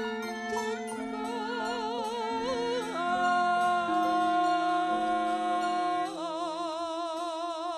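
Female Javanese sindhen singing a long, slow melismatic line with wide vibrato, over gamelan instruments holding sustained notes beneath. Around three seconds in, a long steady note without vibrato sets in and holds until about six seconds.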